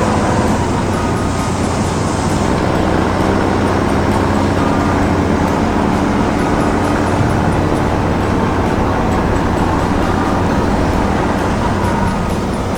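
Heavy diesel machinery running steadily: a loud, continuous engine drone with a steady low hum.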